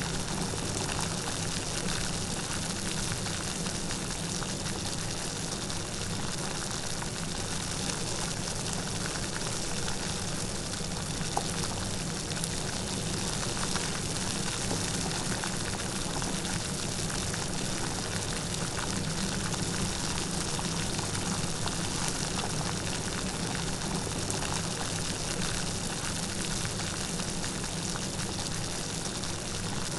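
Light rain falling steadily, a dense even patter of drops.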